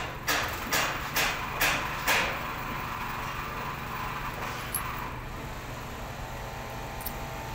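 A run of sharp knocks, about two a second, that stops about two seconds in, over a steady low background hum.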